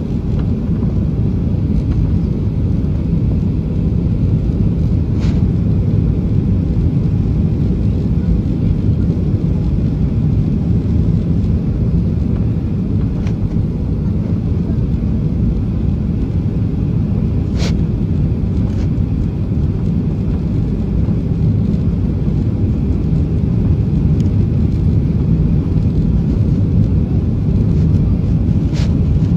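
Steady low rumble of a jet airliner's engines and rushing air heard inside the cabin, on descent for landing with the flaps extended. A few faint clicks sound over it.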